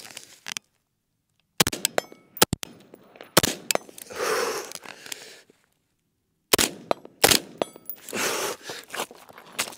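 AR-style rifle fired in rapid succession: a quick string of sharp shots, a brief pause, then a second string of shots.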